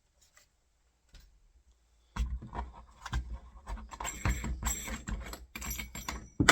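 Irregular clicks, knocks and light metallic rattles of a drill bit and door-handle hardware being handled, starting about two seconds in after a quiet spell and ending with a sharper knock.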